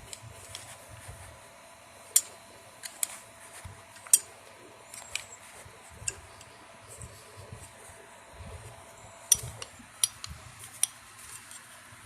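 Scattered sharp metal clicks and clinks, about eight in all, from a hand tap and tap wrench being worked and handled while threads are cut into an engine-case mounting hole.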